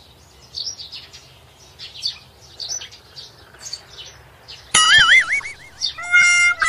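Birds chirping in short high calls, then about three-quarters of the way in a sudden loud cartoon sound effect whose pitch wobbles up and down, followed near the end by a steady held electronic tone.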